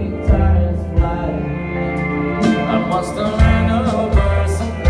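Live band music with a singer and a heavy bass line, recorded from within the audience at a concert.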